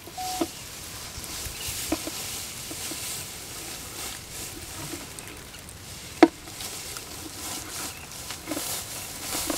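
Water pattering and splashing, with scattered sharp clicks; the loudest comes about six seconds in.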